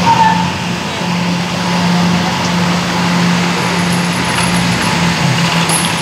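Steady low engine drone as a car pulls an empty boat trailer up the ramp out of the water, with personal watercraft idling close by.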